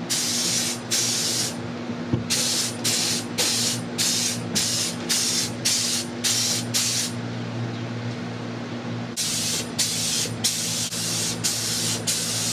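Gravity-feed air spray gun laying down two-part epoxy primer, its compressed air hissing in short bursts, a few a second, as the trigger is pulled and let go on each pass, with a pause of about two seconds past the middle. A steady low hum runs underneath.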